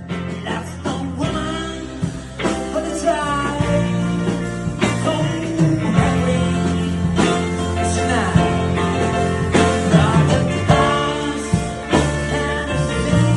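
A rock band playing a slow song with a voice singing over it; the music comes in fuller and louder right at the start.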